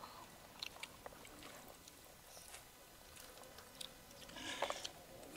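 Faint scattered clicks and rustles of people eating by hand from clay pots and plates, with a short louder scrape about four and a half seconds in.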